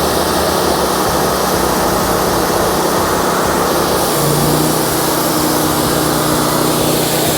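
Wood-Mizer LT40 band sawmill at work: its 26.5 hp engine running under load and the band blade sawing through a log as the head feeds forward. About four seconds in, a steady low hum joins the loud, even noise.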